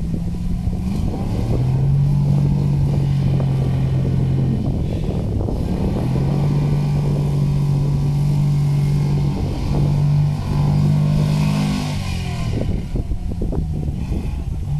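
Land Rover engine pulling under load off-road. The revs rise about a second in, dip briefly around the middle, hold again and fall away near the end, with scattered knocks throughout.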